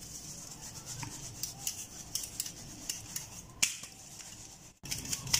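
Fine rice flour being sifted through a metal flour sieve: irregular, soft scratchy rubbing of flour and hand against the fine mesh, with one louder tap past the middle.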